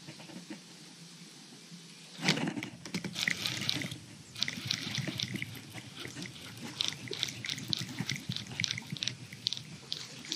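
Water splashing and dripping: a sudden splash about two seconds in, then a run of irregular crackling drips and splatters.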